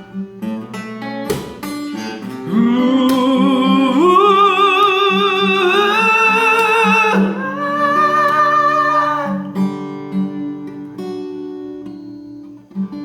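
Acoustic guitar playing a ballad, with a voice holding long wordless notes with vibrato, gliding up at first, from a few seconds in until about two-thirds of the way through; the guitar then plays on alone.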